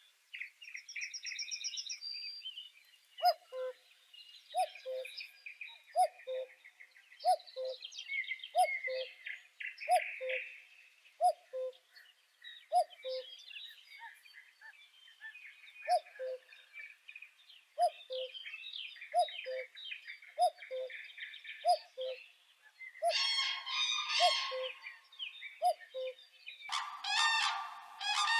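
Several birds singing and calling together: bright chirping and warbling phrases over a short, low two-note call repeated about every second and a half. Near the end, loud harsh honking calls come in.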